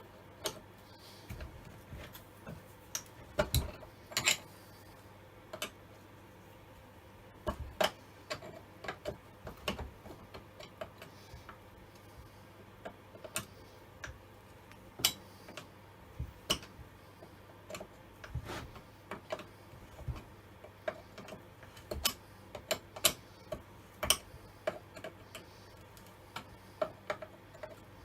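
Irregular light metal clicks and taps of a chainsaw chain and guide bar being handled and fitted back onto an old Stihl 08S chainsaw, a few strokes a second at most, with pauses between.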